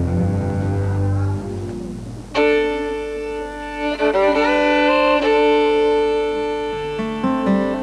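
Background score music on strings: low bowed notes at first, then about two and a half seconds in a violin melody comes in with long held notes that step to new pitches a few times.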